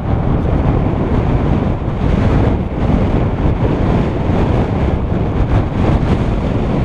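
Steady wind rush on the microphone, mixed with the tyre and rattle noise of a mountain bike riding fast down a wet, muddy dirt trail.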